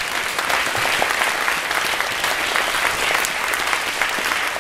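Audience applauding: a steady, dense clapping from many hands.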